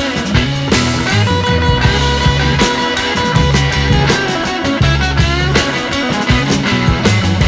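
Rock music with electric guitar, bass and drums, with a steady beat.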